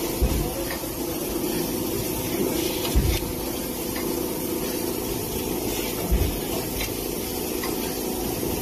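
Automatic plastic-cup counting and bagging machine running: a steady hum and hiss, with a short low thump about every three seconds.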